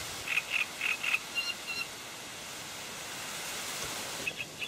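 Steady wind rushing over the microphone and through the reeds at the water's edge. A run of short high chirps comes about a second in, and a few more near the end.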